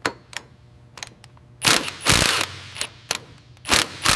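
Workshop sounds: a run of sharp metallic clicks and knocks, broken by several short, loud bursts of hiss. The longest burst is about two seconds in, and another comes right at the end.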